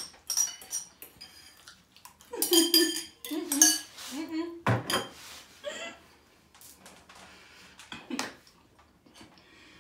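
Cutlery clinking and scraping against bowls as two people eat noodles, with short bursts of voice around the middle and one sharper knock just after.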